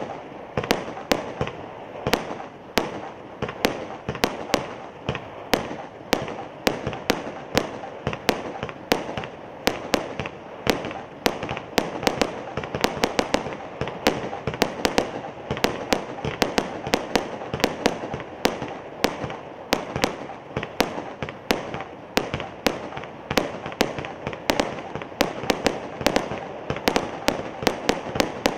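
Firework King Warrior 100-shot barrage cake firing: a fast, unbroken run of sharp bangs, about three a second, with a continuous rush of noise between them.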